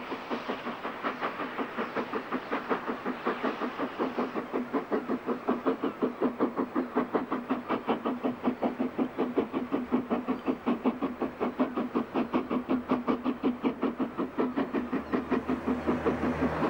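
BR Standard Class 4 4-6-0 steam locomotive No. 75069 working hard up a steep climb, its double chimney giving a quick, even beat of exhaust chuffs that grows louder as it approaches.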